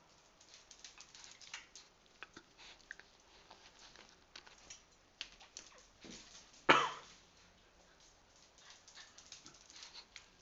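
Jack Russell terrier's claws clicking and pattering on a tiled floor as it trots along carrying a rubber bone. Roughly two-thirds of the way through comes a single short, loud sound that stands out above the clicking.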